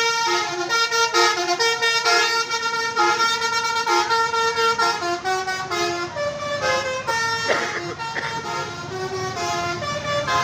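Bus's Basuri multi-tone air horn playing a 'telolet' tune: several tones sounding together, stepping from note to note in short held notes and phrases.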